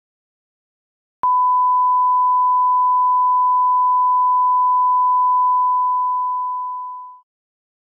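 A steady 1 kHz line-up test tone, the reference tone that goes with colour bars. It starts suddenly with a click a little over a second in, holds level for about six seconds, and fades away over its last second or so.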